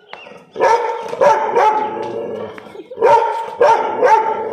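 Young Rottweiler-type dog barking loudly in two runs of about three barks each.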